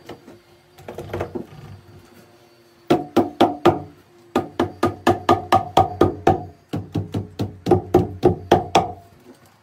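Hammer blows against an upright log: quick runs of sharp knocks, about four a second, each with a hollow wooden ring. They start about three seconds in and stop briefly twice.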